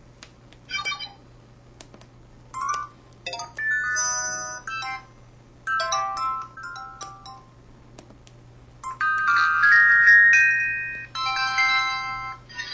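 VK200C mobile phone's built-in sound effects playing one after another through its small speaker: a few clicks, short electronic chimes and blips, then a brighter multi-note jingle about nine seconds in.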